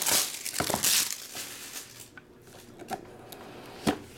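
Clear plastic shrink-wrap crinkling loudly as it is torn and peeled off a sealed trading-card box, then quieter rustling as the box is handled, with a sharp knock near the end.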